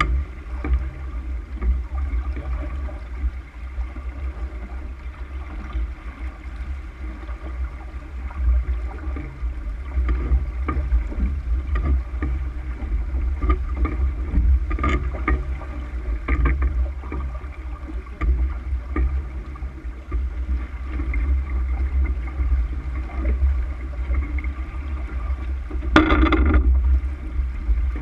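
Water rushing along the hull of a sailboat under sail, over a steady low wind rumble, with a few faint knocks and one brief louder burst of noise near the end.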